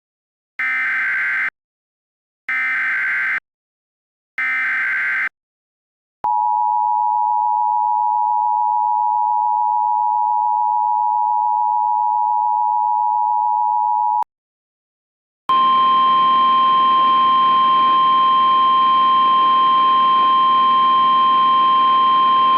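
Emergency Alert System tornado-warning opening: three screeching bursts of SAME header data, about a second apart. These are followed by the two-tone EAS attention signal, held steady for about eight seconds. After a short silence comes a steady single alert tone of about 1050 Hz over radio static, as on NOAA Weather Radio.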